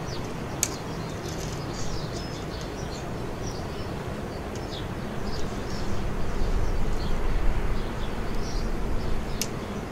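Outdoor background sound: small birds chirping now and then over a steady low rumble. The rumble swells for a few seconds past the middle. Two sharp clicks, one near the start and one near the end.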